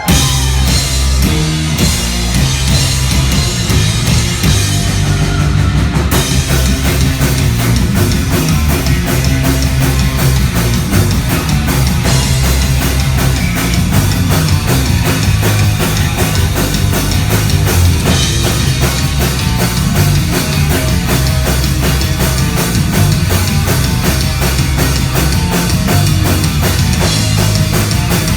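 Loud live heavy metal band playing, with a drum kit keeping a fast, even beat under heavy bass and guitars.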